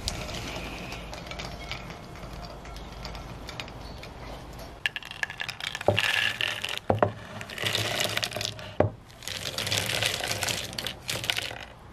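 Roasted cacao beans poured from a terracotta bowl onto a ceramic plate, clicking and rattling against the plate and each other. The rattling comes in several bursts starting about five seconds in, as the bowl is tipped.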